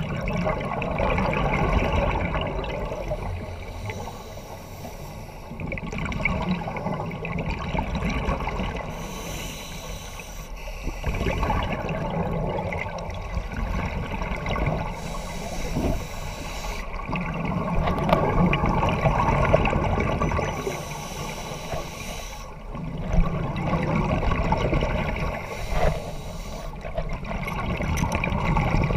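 Scuba diver breathing through a regulator underwater. Gurgling bubble exhalations alternate with a hiss of inhaled air, about one breath every six seconds.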